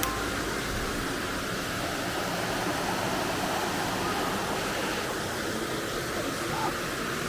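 Creek water running in a steady rush.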